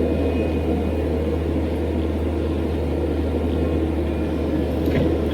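Cat 226B skid steer's diesel engine running steadily with a low, even drone.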